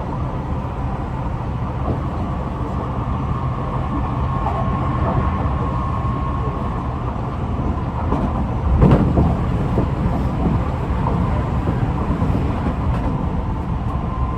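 Running noise inside a Tobu 50090-series electric train car: steady rumble of wheels on rail with a faint held motor whine, and one heavier thump about nine seconds in. This car's traction motors make a slightly unusual sound, which the uploader suspects comes from a different type of motor.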